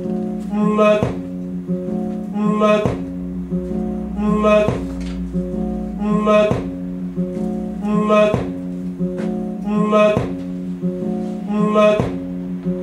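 Plucked guitar music played from a vinyl LP on a turntable. One short phrase, a sharp pluck followed by ringing notes, repeats about every 1.8 seconds, once per turn of a 33⅓ rpm record, as in a locked groove.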